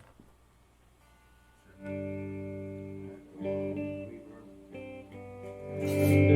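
Guitar chords struck and left to ring: after a near-silent start, a first chord about two seconds in, more at about three and a half and five seconds, and the playing grows louder near the end.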